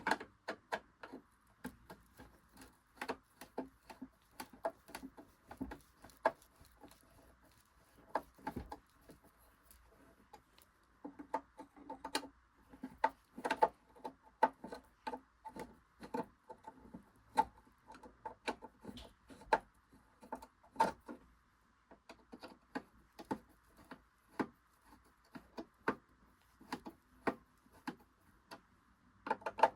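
Irregular small clicks and taps of a screwdriver working at the screws in the back casing of a Singer Genie 353 sewing machine, with the casing handled between turns. A faint steady hiss lies underneath.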